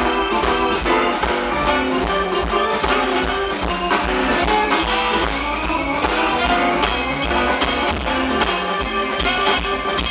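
Blues band playing live: saxophone lead over electric guitars, keyboard and drum kit.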